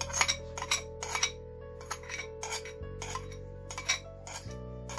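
Metal spoon clicking and scraping against the inside of a china bowl in a quick, irregular run while scraping out the last of the honey. Background music with long held notes runs underneath.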